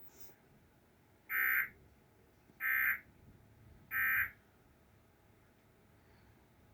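Emergency Alert System end-of-message data signal: three short bursts of digital two-tone data, about a second and a third apart, marking the end of the alert broadcast.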